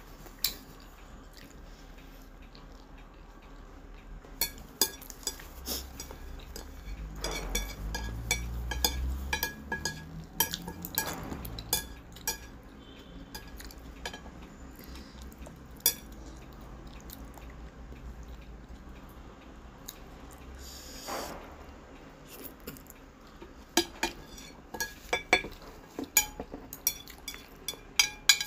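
Orange plastic chopsticks clicking and scraping against a ceramic plate in scattered short clicks, which come closer together near the end as the plate is handled.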